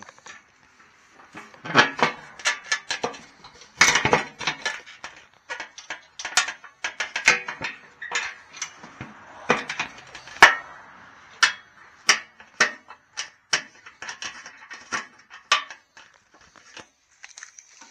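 Irregular metallic clinks and knocks of tools and metal parts being handled on a mini excavator, one or two sharp clanks a second with lighter rattling between them.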